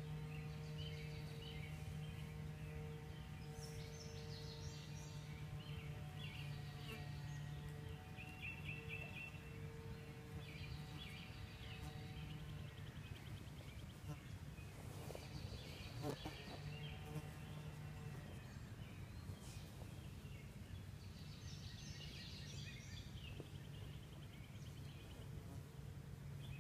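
Garden birds chirping and singing over a steady low hum, which fades about halfway through.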